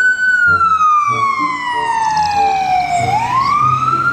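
Ambulance siren wailing in a slow glide: it falls steadily for about three seconds, then starts rising again near the end.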